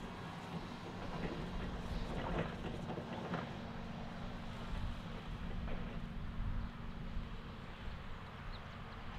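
Toyota 8FBMT30 electric forklift driving away over concrete block paving: a faint steady hum from its drive, with a few sharp rattling knocks in the first few seconds.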